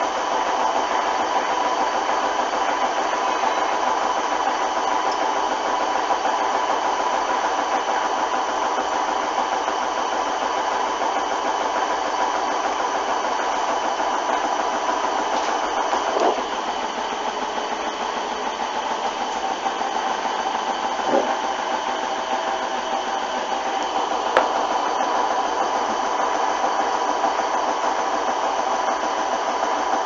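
Hoover front-loading washing machine running an A59 30 °C wash, its motor giving a steady whine, with a few brief knocks.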